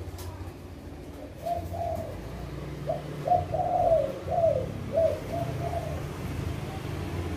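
Caged colour-mutation spotted doves (tekukur) cooing: short arched coos in several runs, the busiest from about three to four and a half seconds in, over a low steady hum.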